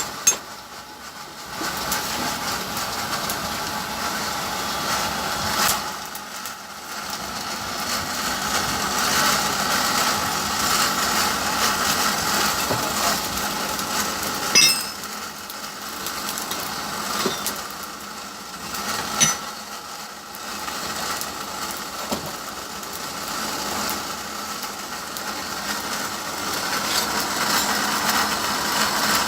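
A machine running steadily, with a few sharp metallic knocks scattered through it.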